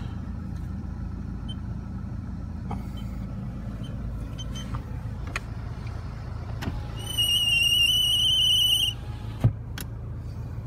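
Car engine idling, heard from inside the cabin. About seven seconds in, a high electronic tone sounds for about two seconds, wavering slightly, and is followed by a sharp click.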